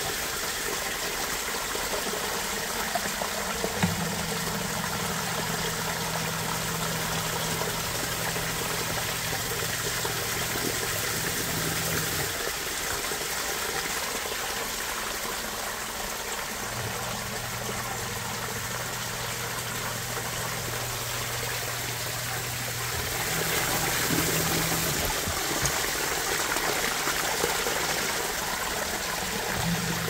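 Water running and trickling into a basement sump pit from the drain-tile inlets, over the low electric hum of the submersible sump pump, which fades out for a few seconds about a third of the way in and again later. The inflow is steady enough to keep the pump running without stopping.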